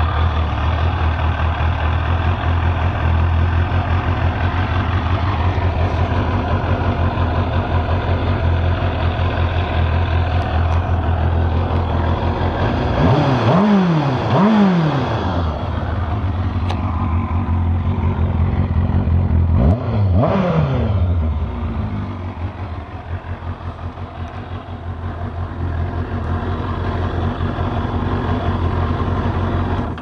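2002 Kawasaki ZX-6R's 636 cc inline-four engine idling, given two quick throttle blips about halfway through and another a few seconds later. The idle wavers lower after the last blip, and the engine cuts off at the very end.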